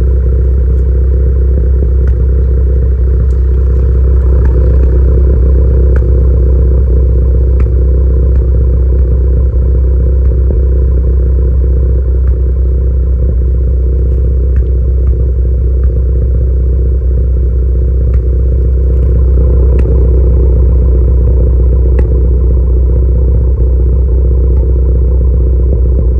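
Turbocharged car engine running at a steady idle, with brief pops coming irregularly every second or two. The owner suspects the pops are misfires: the car has random and cylinder 1 and 4 misfire codes (P0300, P0301, P0304) stored.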